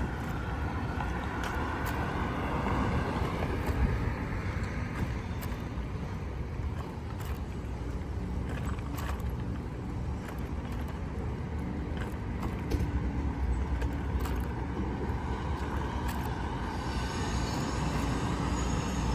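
Road traffic on a multi-lane city street: a steady low rumble of engines and tyres that swells as cars pass, with one car going by near the end.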